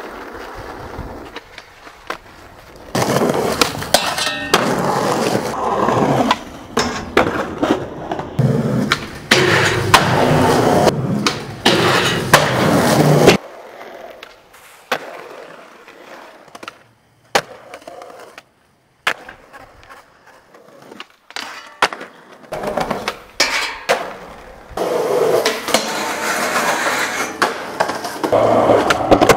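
Skateboard wheels rolling on concrete and asphalt, broken by sharp clacks of the board popping and landing. The rolling stops for several seconds in the middle, leaving only a few scattered clicks.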